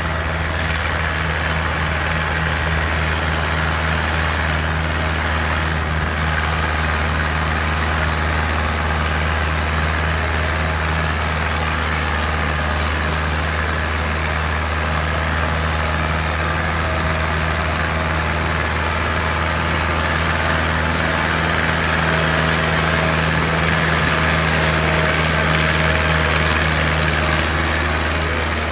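Diesel tractor engine running steadily under heavy load as it drags a disc harrow through the soil: a low, even drone that swells slightly near the end.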